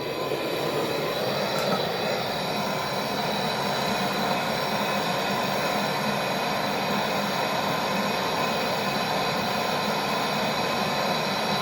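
Gas brazing torch burning steadily with a hissing rush of flame, lit suddenly at the start, as the refrigeration line is brazed.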